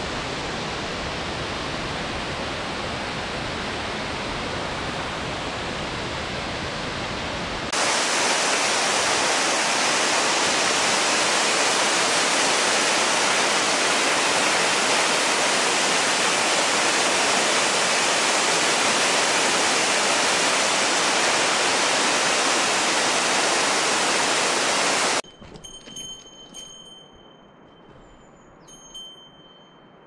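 Falling water of Sanbon-daki waterfall: a steady rushing noise that jumps suddenly louder and brighter about a quarter of the way in. Near the end the water noise cuts off abruptly, leaving a much quieter stretch with faint thin high tones and a few small ticks.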